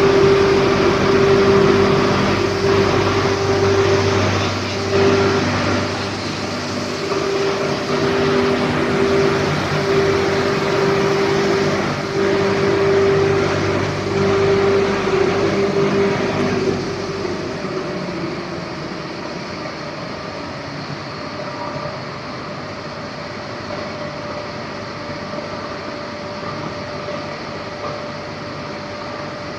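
Wire-mesh-belt shot blasting machine running: a steady mechanical noise with a loud, wavering hum. About seventeen seconds in the hum stops and the noise drops to a quieter, lower steady drone.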